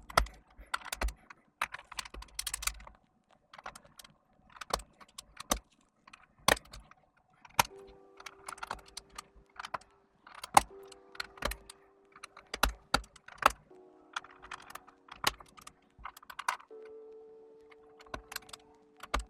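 Key presses on a Redragon Fizz K617 mechanical keyboard fitted with new Akko switches, foam dampening under the PCB and lubed stabilizers: irregular clacks, a few a second. Background music comes in under them about eight seconds in.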